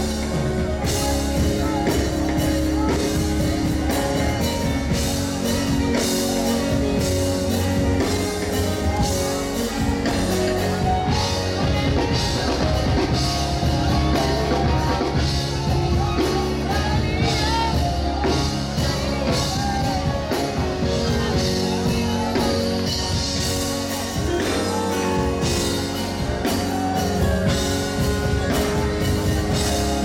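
Live gospel worship band playing a steady-beat song, with drum kit and keyboard and a singing voice carrying the melody.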